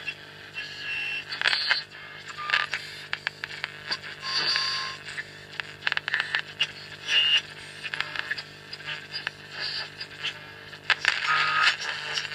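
Medium-wave broadcast playing through the 1972 Videoton R5932 radio's loudspeaker, driven by its newly repaired germanium-transistor (AD162) power-amplifier channel. The programme comes through with crackles and clicks over a steady mains hum.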